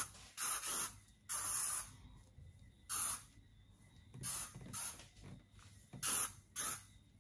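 Hand-pumped hair spray bottle spritzing onto hair: short sharp hisses, often two in quick succession, repeating every second or so.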